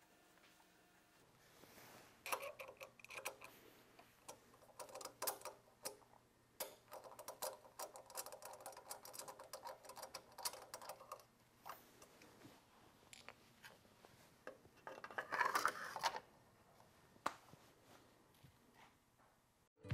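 Small screwdriver fastening a metal accent-light housing to a stainless steel railing post: faint, irregular clicks, taps and scrapes of metal on metal, with a louder cluster of clicks near the end.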